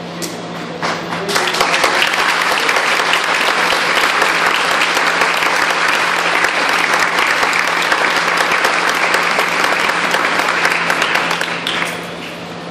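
Audience applauding. It starts about a second in, holds steady, and fades out near the end.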